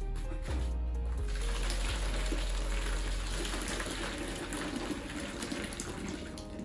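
Hot melted fabric-softener mixture poured from a pot into a larger bowl: a steady splashing pour that starts about a second in and slowly tapers off, over background music.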